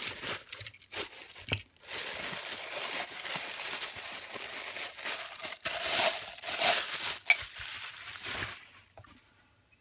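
Wrapping crinkling and rustling as a packed coffee mug is unwrapped, with a few light knocks in the first couple of seconds. The rustling runs on for about seven seconds and stops shortly before the end.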